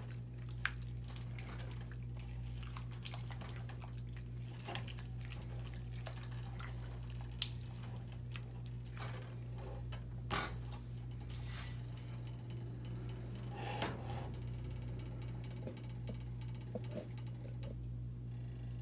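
A pot of taco soup on the stove, giving scattered soft pops and bubbling, with an occasional click of a silicone spatula against the pan. A steady low hum sounds underneath.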